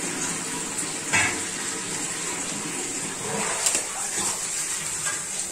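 Curry gravy boiling hard in a pan over a high flame to cook off the water: a steady bubbling hiss, with a few light clicks.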